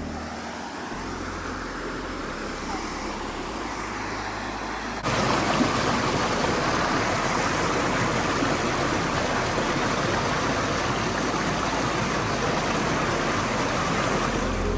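Steady rush of moving water, with an abrupt step up to a louder, fuller rush about five seconds in.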